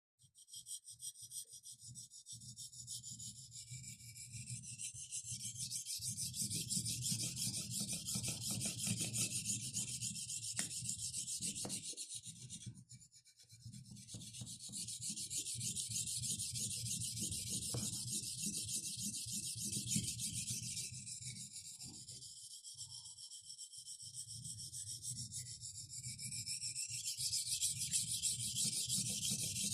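Kitchen knife blade being stroked back and forth on a Tajima medium-grit Japanese natural whetstone: a continuous rapid rasping, with a brief pause a little before halfway.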